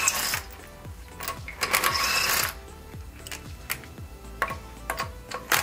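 Cordless impact wrench with a 21mm socket spinning lug nuts off a car wheel in short loud bursts: one at the start, one about two seconds in, and one at the end.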